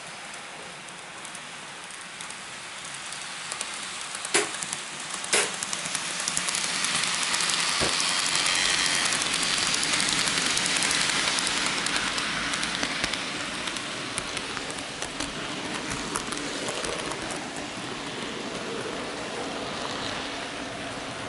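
N-gauge model train running on the track, heard from a camera car riding on the layout: a steady hiss and rattle of small wheels on rail, with a couple of sharp clicks early on, swelling louder in the middle as a second train passes close by on the next track.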